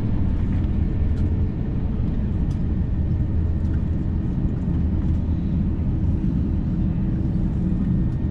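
Steady deep rumble of an Airbus A350-900's Rolls-Royce Trent XWB engines and the airflow, heard inside the economy cabin.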